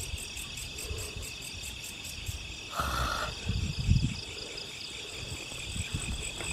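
Night chorus of crickets and other insects trilling steadily, a high pulsing chirr. A brief rustle comes about three seconds in, with a few low thumps around it.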